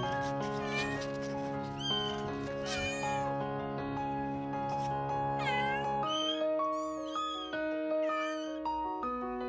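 Newborn kittens giving repeated short, high-pitched mews, more of them in the second half, over soft background music of held notes.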